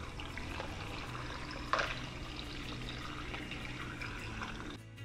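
Water pouring from a plastic gallon jug into a blender jar full of chopped vegetables and ice, with one louder splash a little under two seconds in. Music comes in right at the end.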